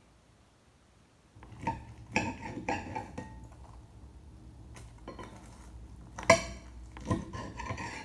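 Table knife and fork clinking and scraping against a plate while slicing through an air-fried fish cordon bleu, starting about a second and a half in as a string of short clicks and scrapes. The sharpest clink comes about six seconds in.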